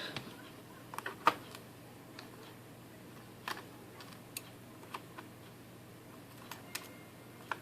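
Small, sharp metal clicks and ticks, about a dozen at irregular intervals, from tweezers and loose pins working against a disassembled Mul-T-Lock cylinder while freeing a stuck inner pin.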